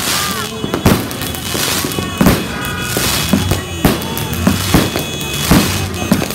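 Fireworks going off in a rapid, irregular series of sharp bangs, roughly one every half second, with music playing underneath.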